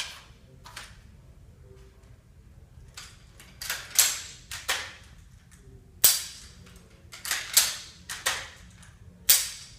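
Spencer repeating carbine's lever action and hammer being worked over and over, a series of about a dozen sharp clacks, some in quick pairs, with no shots fired.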